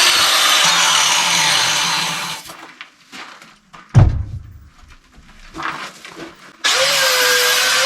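Angle grinder grinding the edges of steel tong blanks, then stopping and winding down about two and a half seconds in. A single loud knock follows about four seconds in, and the grinder starts again suddenly and grinds on near the end.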